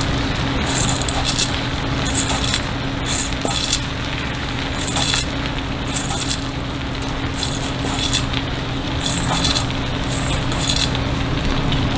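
Takoyaki cooking on a hot grill: a sizzling hiss that swells in short bursts every half second to a second, with scattered small ticks and a steady low hum underneath.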